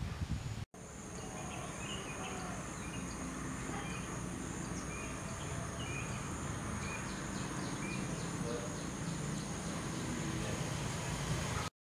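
Outdoor ambience: a steady high-pitched insect drone with short bird chirps scattered through it and a run of quick repeated ticks past the middle. It all cuts off abruptly near the end.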